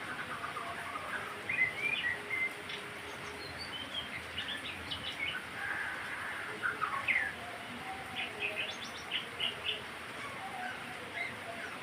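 A murai songbird singing a fast, varied run of short chirps and whistled notes, over a faint steady hiss.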